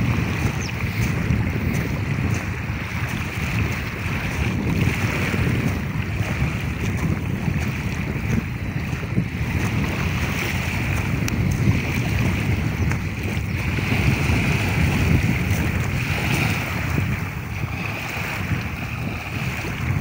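Small wind-driven waves lapping and washing onto a gravel lakeshore, in a hiss that swells and fades every few seconds. Wind buffets the microphone throughout in a steady low rumble.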